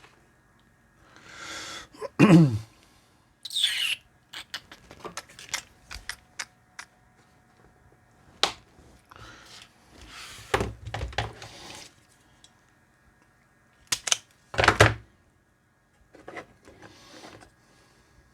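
Thin hookup wire and small tools being handled on a workbench: scattered clicks, taps and light knocks with brief rustles, and two louder knocks, about two seconds in and near the end.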